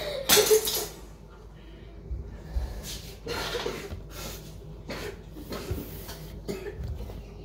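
A child's loud, breathy yawn sound about half a second in, followed by quieter breaths and small voice sounds.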